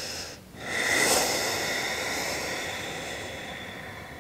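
Ujjayi breathing, the yogic "oceanic" breath: one breath ends, and after a short gap a long hissing breath through a narrowed throat starts about a second in and slowly fades away.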